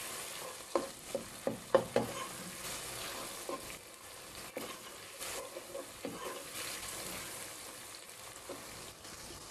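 Tomatoes and onions sizzling in hot oil in a pot while being stirred with a ladle: a steady frying hiss, with the ladle scraping and knocking against the pot now and then, most often in the first couple of seconds.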